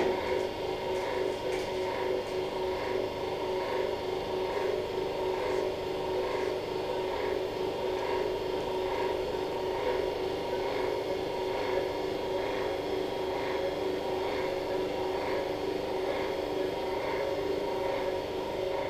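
Arthroscopy equipment running: a steady hum with several held tones and a soft pulse repeating about one and a half times a second.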